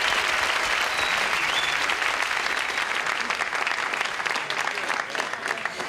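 Audience applauding in a small club, the clapping thinning out and dying down near the end.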